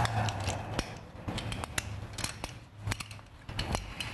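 Scattered light metallic clicks and ticks from a Harley-Davidson Shovelhead's open primary chain and engine being turned slowly by hand to bring the piston up to top dead centre for timing, over a low steady hum.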